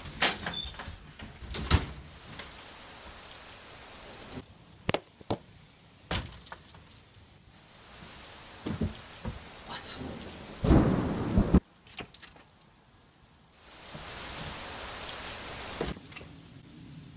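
Rain falling with thunder. The rain starts and stops abruptly several times, with scattered sharp knocks and a loud burst of thunder about two-thirds of the way through.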